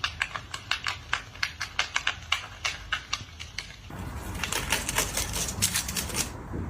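A fast, irregular run of sharp taps or clicks, about five a second. About four seconds in the background changes to a steady hiss, and the clicks go on thick and fast for a couple more seconds.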